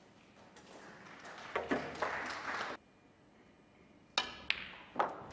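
Sharp clicks of snooker balls and cue on a match table: a couple of clicks about one and a half seconds in with a brief crowd murmur that cuts off suddenly, then three sharp clicks with a short ring in the last second and a half as the cue strikes the white and the ball comes off the cushion.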